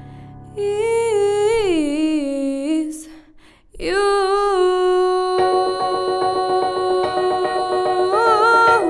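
A woman singing slow, sustained notes with falling melismatic runs, breaking briefly and then holding a long note. About halfway through, a rhythmic piano accompaniment of repeated chords comes in under the voice.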